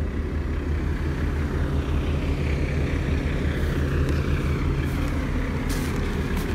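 Diesel truck engine idling with a steady low drone, with a few crunching footsteps on snow about five to six seconds in.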